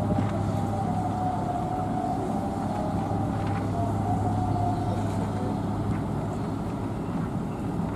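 Ship diesel engines droning steadily, with a strong low hum. A wavering higher hum rides over it and fades out in the second half.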